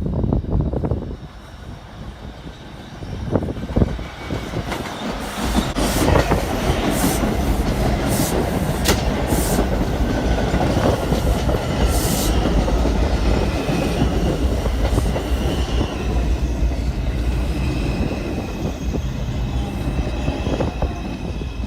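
R142 subway train running past at track level, loud and steady, its wheels clacking sharply over rail joints for several seconds in the middle.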